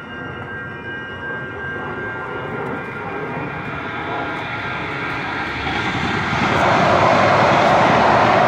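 A jet airliner flying low overhead, its engines a steady whine over a growing rush. About six seconds in, a loud rushing noise swells up and becomes the loudest sound as Metro Blue Line light-rail trains pass the crossing.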